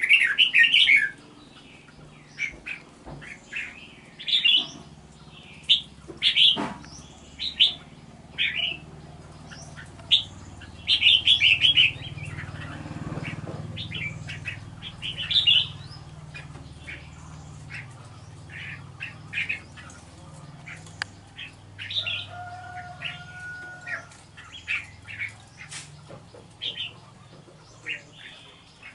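Red-whiskered bulbul giving many short, sharp chirps in quick runs, busiest in the first half. A low rumble swells and fades around the middle.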